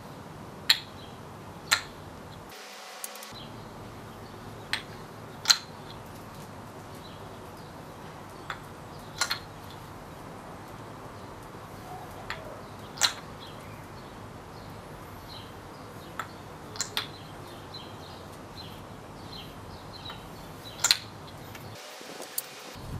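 Wooden clacks of a maple kendama ball landing on the cups and spike: sharp single clicks at irregular intervals, a second to several seconds apart, some in quick pairs.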